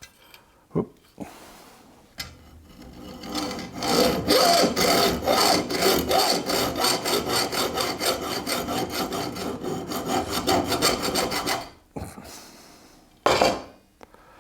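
Hacksaw cutting back and forth in quick, even strokes, building up over the first few seconds and then running steadily for about eight seconds before stopping. A single short knock follows near the end.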